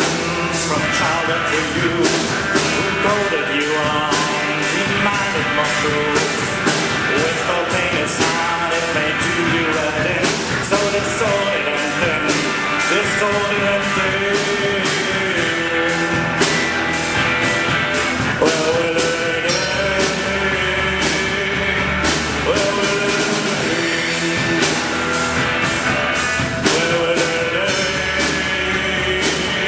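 Live rock band playing: a drum kit with cymbals struck on a steady fast beat, electric guitar, and a man singing.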